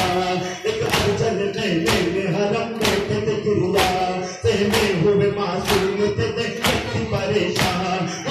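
Male mourners chanting a noha, a Shia lament, with a steady beat of about one sharp strike a second from the matam, hands striking chests in time.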